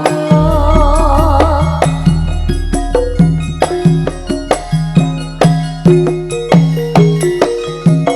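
Campursari music. A wavering melody line ends about two seconds in, over a deep low note that rings on for several seconds. After that it is mostly instrumental, with a steady pulse of drum strokes and struck metallic tones.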